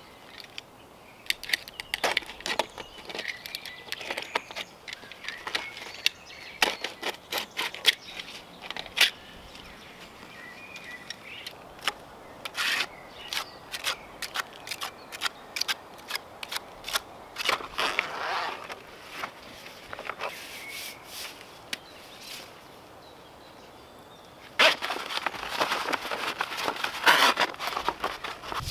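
Scattered sharp clicks and crackles of hands handling materials. About 25 seconds in, a dense rustling sets in as a stiff black waterproofing membrane sheet is unfolded and laid over a concrete pier.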